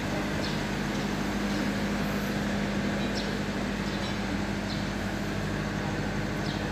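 A machine running steadily in the background: an even mechanical drone with a constant low hum, and a few faint light ticks.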